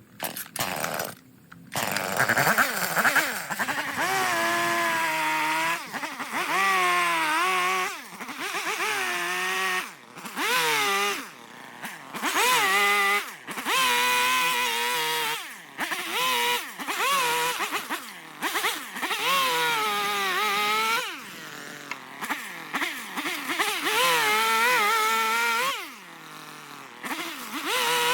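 Chainsaw starting up near the beginning, then revving in repeated bursts of a few seconds as it cuts into eastern red cedar. Its pitch sags and rises under load and drops back to idle between cuts.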